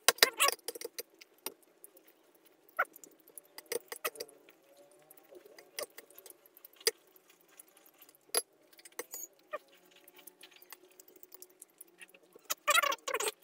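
Cutlery clinking and scraping against a bowl while meatball soup is mixed with rice and eaten. The clicks come singly and scattered, with busier flurries at the start and near the end.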